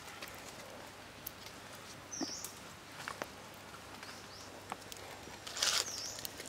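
Forest ambience: a few brief high bird chirps over scattered light clicks and taps of handling, with a louder rustling scrape a little before the end.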